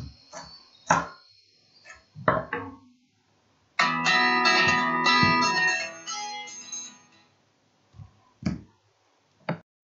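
Kitchen knife chopping parsley on a wooden cutting board: a few separate sharp knocks in the first couple of seconds and a few more near the end. In the middle, about three seconds of guitar music.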